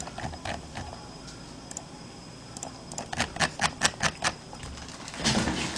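Computer keyboard typing: a short quiet spell, then a quick run of about eight sharp key clicks about three seconds in.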